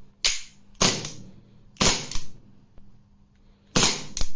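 CO2 blowback BB pistols (Beretta M92A1 and M9A3 replicas) fired with no BBs loaded: about six sharp gas pops, each with the slide snapping back, the later ones in quick pairs.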